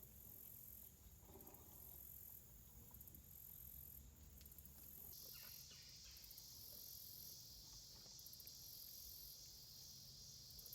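Faint insect chorus: very high, pulsing chirps in repeated bursts, joined about halfway through by a steady shrill buzz.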